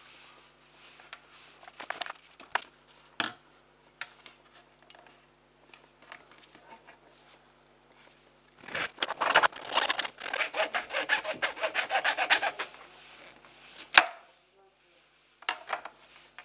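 Small hacksaw cutting through a plastic pen barrel: scattered handling clicks at first, then about four seconds of rapid back-and-forth sawing strokes. A single sharp click follows.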